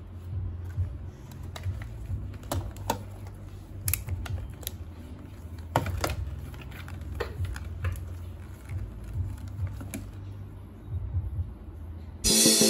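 Irregular small clicks and taps, a few a second and unevenly spaced, over a steady low hum. Music starts abruptly near the end.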